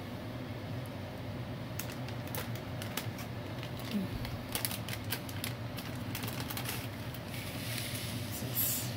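Cooking oil heating in a nonstick pan, starting to crackle and spit in scattered sharp pops from about two seconds in, with a brief denser sizzle near the end, over a steady low hum.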